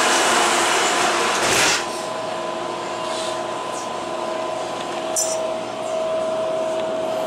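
Passenger doors of an MTR CAF metro train sliding shut: a rush of noise that ends in a short thud as the doors meet a little under two seconds in. Then the train's steady electrical whine as it stands, with a couple of faint clicks.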